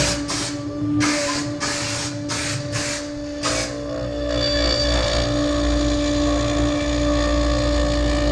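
Onefinity CNC router's spindle running at 18,000 rpm with a steady whine while its bit cuts end-grain larch. The cutting noise comes in several short bursts through the first four seconds, then settles into a steadier cut.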